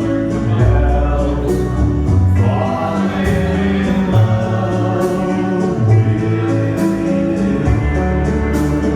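Music with sung, choir-like vocals over held chords, a strong bass line and a steady beat.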